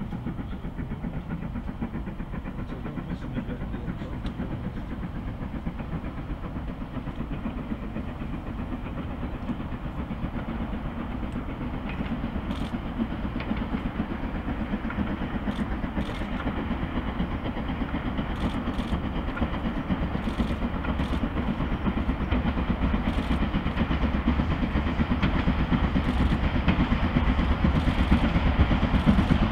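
Steam locomotive and its train approaching, the rumble of its running growing steadily louder, with occasional sharp clicks from about halfway through.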